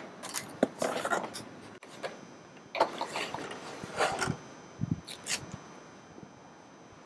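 Hands handling a plastic seat-console base frame and its upholstery cover: irregular rubbing, scraping and knocking noises that die away about five and a half seconds in.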